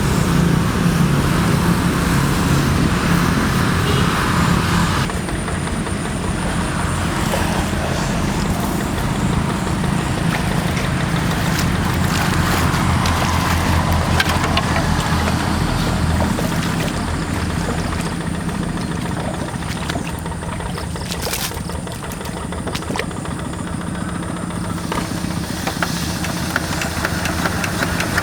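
Yanmar diesel engine of a Quick G1000 hand tractor running steadily, its sound changing in tone about five seconds in.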